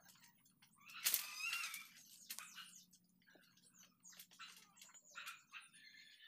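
Faint animal calls with scattered light clicks and rustles; the loudest is a short bending call about a second in.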